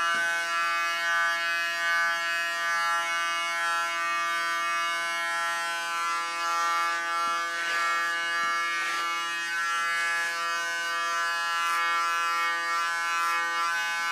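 Electric hair clipper running with a steady buzz as it is passed over very short hair to trim stray hairs, with a couple of short scratchy noises a little past halfway.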